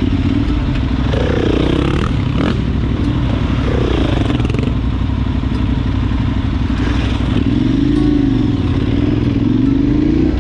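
Adventure motorcycle engine running as the bike moves off on a gravel track, its revs swelling and falling several times, with a knock about two and a half seconds in.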